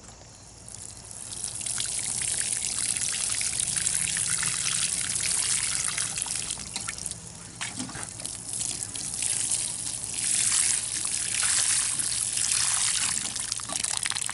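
Water pouring and splattering onto loose garden soil, starting about a second in: freshly sown seed beds being watered in.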